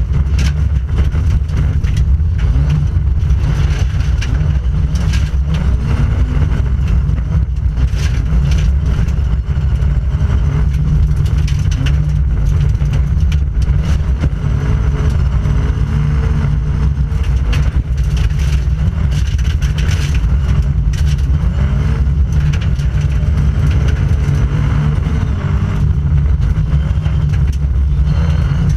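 Inside the cabin of a Volvo 940 rally car driven hard on a gravel stage: the engine running loud under load, its pitch rising and falling with the throttle and gear changes, over steady road noise and scattered sharp knocks.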